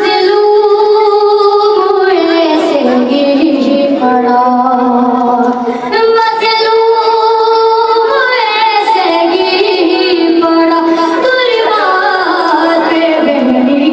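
A boy singing a noha, a Muharram mourning lament, into a microphone: long held notes that glide down in pitch at the end of each phrase.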